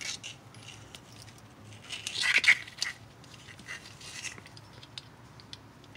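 Light handling noise as an oxygen sensor is picked up next to a steel weld-in sensor bung: scattered small clicks and a brief scraping rustle about two seconds in.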